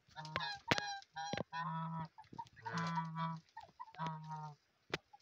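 White domestic geese honking repeatedly, a run of four or five loud calls, with a few sharp clicks in between.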